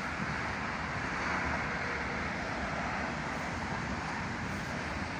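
Freight train of container wagons rolling past, a steady noise of wheels on the rails.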